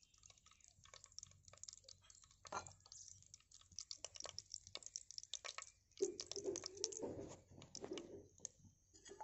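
Whole spices (cinnamon, cloves and star anise) frying in hot oil in a clay pot: faint, scattered crackling and light sizzling, busier about six seconds in.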